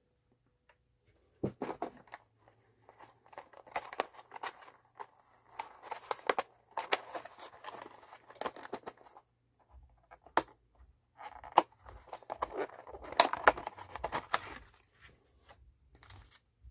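Clear plastic packaging of an Ortofon cartridge being opened and handled: bursts of crinkling and rustling with sharp clicks, coming in clusters with short pauses between.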